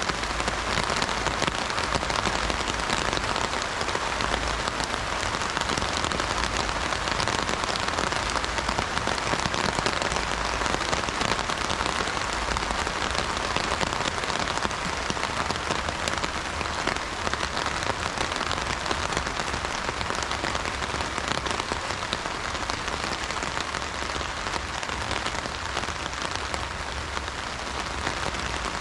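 Steady heavy rain drumming on an umbrella canopy, a dense patter of drops with no thunder.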